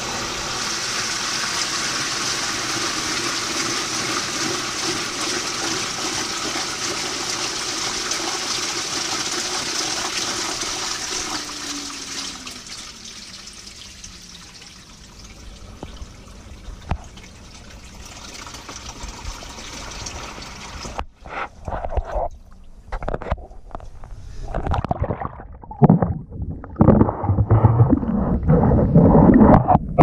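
LG 18 kg top-load washing machine agitating: water churning and swirling in the tub over a faint motor hum that winds down about twelve seconds in. From about twenty seconds in the sound turns muffled, with heavy irregular low thuds and surges as the waterproof camera is under the churning water.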